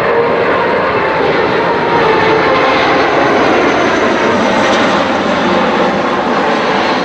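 The four Pratt & Whitney F117 turbofan engines of a Boeing C-17 Globemaster III running at display power as it flies past. It is a loud, steady jet noise with faint whining tones that come up in the second half.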